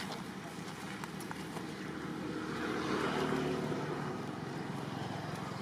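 Steady outdoor background noise with a motor vehicle passing, loudest about three seconds in.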